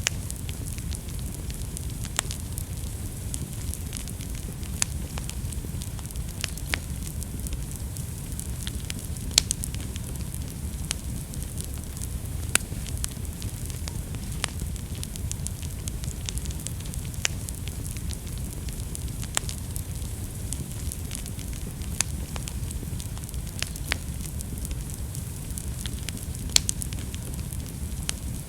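Wood fire burning in a fireplace: a steady low rumble of flames with scattered sharp crackles and pops, a few of them louder.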